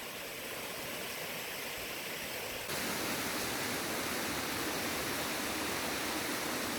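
Waterfall: a steady rush of falling water that steps up louder a little under halfway through.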